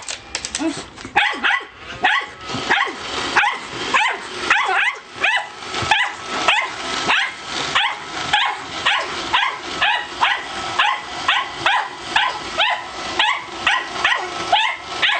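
Shetland sheepdog barking repeatedly in short, high-pitched yips, about two or three a second without letup: excited play barking.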